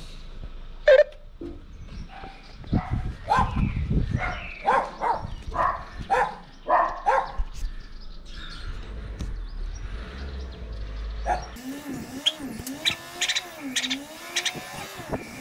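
A dog barking: one sharp bark about a second in, then a quick run of about eight barks. Near the end a wavering tone that rises and falls, with a few clicks.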